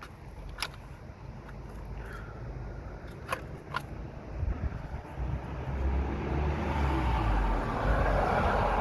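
A car's sound swelling over several seconds, a low rumble with a rising rush that peaks near the end, after a few sharp clicks in the first half.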